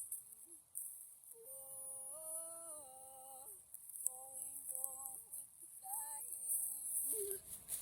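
A solo voice singing long wordless held notes in short phrases, the pitch stepping up and back down between notes, with brief pauses between phrases.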